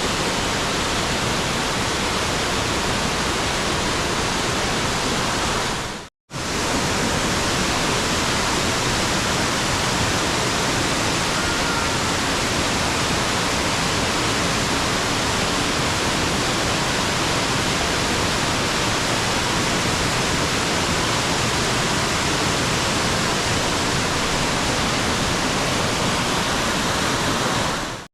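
Loud, steady rushing of a mountain stream cascading over rock steps in a narrow gorge, cut off briefly about six seconds in before it resumes.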